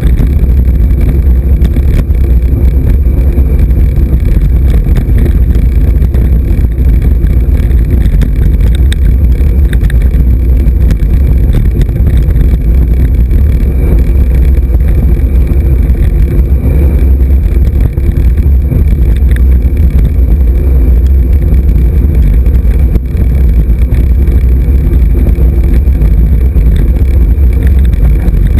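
Steady, loud low rumble of wind buffeting the microphone of a camera riding along on a road bike.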